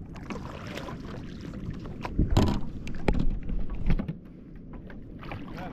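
Water sloshing against a fishing kayak's hull, with several hollow knocks on the boat. The loudest knock comes about halfway through.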